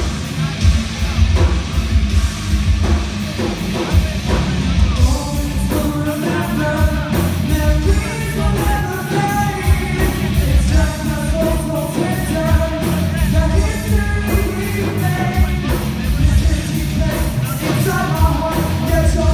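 Rock band playing live at full volume, drums hitting steadily under the band. A lead voice comes in singing about five seconds in and carries on over the band.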